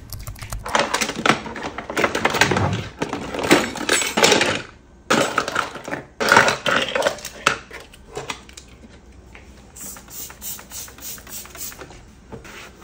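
Plastic and nylon kitchen utensils and clips clatter and rattle against each other and the drawer bottom as they are lifted out of a kitchen drawer by the handful. The clatter is busiest in the first seven seconds or so, then turns into lighter, scattered knocks.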